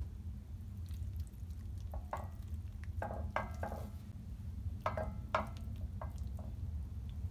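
Wet squishing and short scraping sounds, several in irregular bursts, as aged kimchi leaves and a slab of raw pork belly are pressed into a pot with tongs, over a steady low hum.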